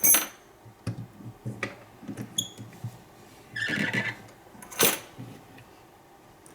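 Light metallic handling sounds of a padlock and lockpicking tools: scattered sharp clicks and taps, loudest just at the start and about five seconds in, a short ringing ping about two and a half seconds in, and a brief scrape around four seconds.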